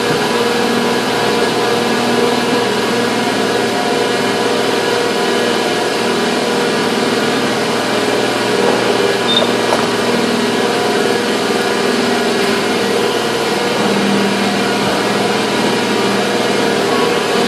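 Factory machinery running with a steady, loud drone and several constant humming tones, with no distinct strokes or impacts.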